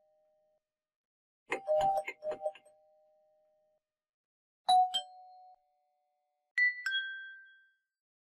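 Doorbell chimes ringing three times, each a two-note ding-dong falling in pitch. The first, about a second and a half in, has clicking over it; the second is a clean chime near the middle; the third is higher-pitched.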